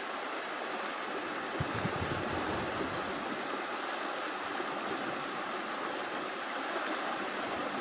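Steady rushing of flowing water, even and unbroken, with a thin steady high tone above it.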